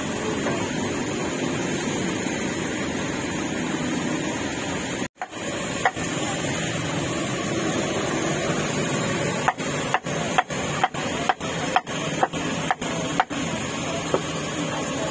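Steady hiss of heavy rain, with a cleaver chopping roast meat on a block: one sharp chop about a third of the way in, then a quick run of about nine chops, roughly two a second, later on.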